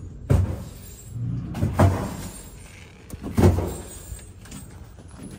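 Three dull thumps about a second and a half apart, over low rumbling and handling noise.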